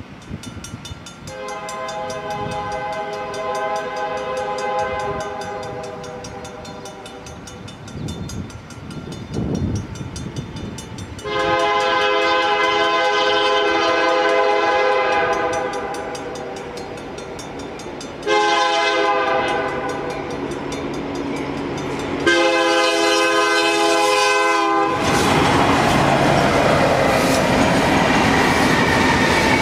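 A CN freight train's locomotive horn, on an EMD SD70I and GE ES44DC lash-up, sounds four blasts for a grade crossing: two long ones, then two shorter ones close together. A crossing bell rings steadily underneath. From about 25 seconds in, the locomotives and then covered hopper cars roll past loudly, wheels clacking over the rails.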